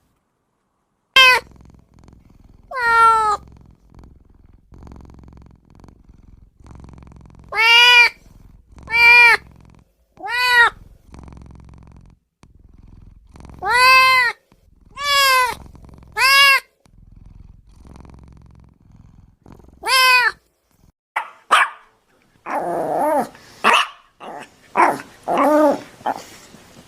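Domestic cat meowing repeatedly, each meow a single rising-then-falling call under a second long, separated by gaps of one to several seconds. Near the end comes a quicker run of shorter, rougher cries.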